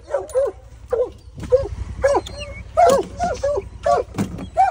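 Plott hounds barking excitedly in short, rapid, pitched barks, roughly two a second, as the pack is turned loose from the truck onto a fresh bear track. A low steady rumble runs underneath.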